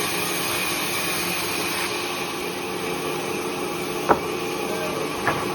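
Bandsaw running steadily through timber, a continuous mechanical hum and hiss, with two sharp knocks about four and five seconds in.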